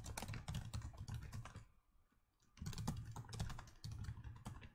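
Typing on a computer keyboard: a quick run of key clicks, a pause of about a second, then another run of clicks.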